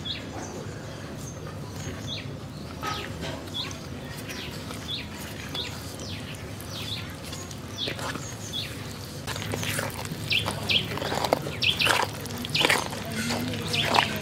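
A small bird chirping, short high chirps about once a second. From about nine seconds in, a whisk scraping and clattering in a stainless steel bowl, louder, as it stirs flour, oil and milk into thick cake batter.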